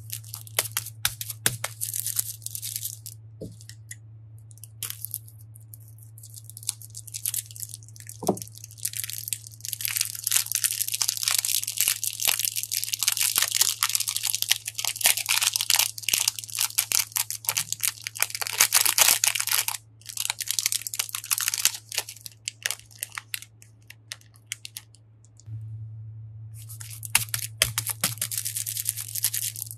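Plastic cone bags of water beads crinkling in the hands, and water beads pouring out of a cut bag onto a bowl full of beads: a dense crackling patter for about ten seconds in the middle, with more crinkling near the end. A steady low hum runs underneath.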